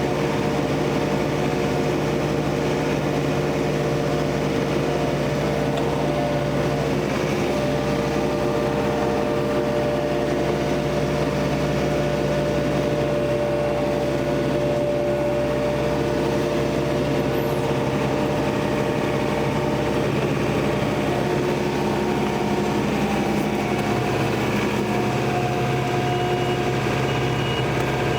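Diesel engine of a compact tractor carrying a John Deere 485A backhoe, running steadily. Its note shifts slightly near the end.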